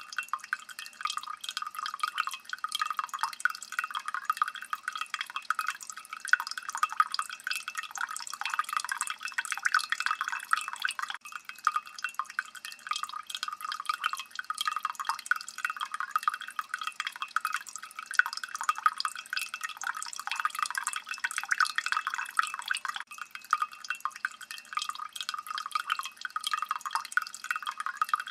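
Water dripping steadily: many small drops falling in quick, irregular succession, each a short bright plink.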